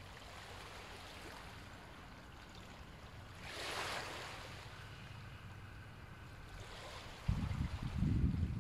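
Soft ujjayi breathing: a breath drawn through a narrowed throat with a gentle snoring, ocean-like hiss that swells and fades about halfway through. Near the end, wind starts buffeting the microphone with a low, gusting rumble.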